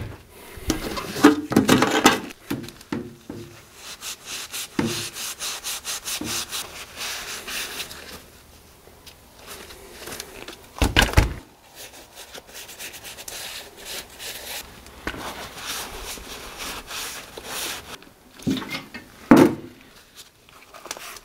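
Shop towel rubbing a crankshaft damper pulley clean with acetone, in rapid short wiping strokes, with a couple of louder knocks as the pulley is handled on the cardboard-covered bench.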